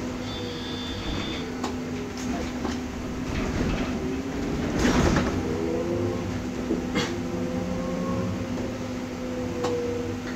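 Cabin noise of a MAN Lion's Classic city bus converted to electric drive, running on the road: a steady hum with the drive's whine gliding up and down in pitch, a short loud hiss near the middle and a few sharp knocks.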